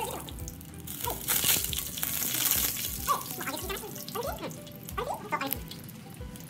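Hot oil sizzling and crackling as Japanese giant hornets deep-fry in a pan.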